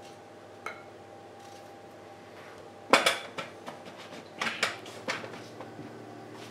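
Raw potato chunks knocking against a speckled enamel roasting pan as a hand pushes them around in it: a sharp clank with a short ring about three seconds in, then several lighter knocks and clinks.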